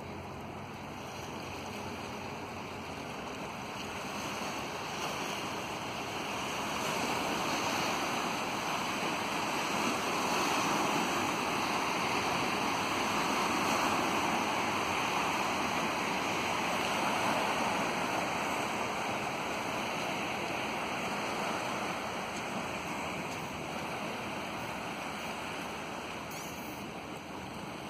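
Sea waves washing on a stony shore: an even rush of water that swells to its loudest midway and slowly fades again.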